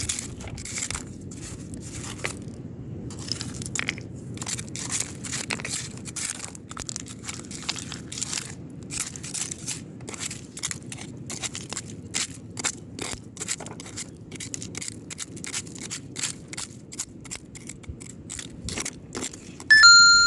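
Irregular gritty crunching and scraping, about two or three strokes a second, from digging or stepping in coarse sand and shell rubble. Just before the end a short, loud electronic beep cuts in.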